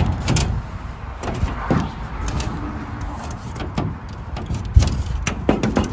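18 mm snap-off utility knife cutting through a polycarbonate greenhouse sheet along the metal frame: an irregular run of scraping and clicks as the blade drags through and the sheet flexes.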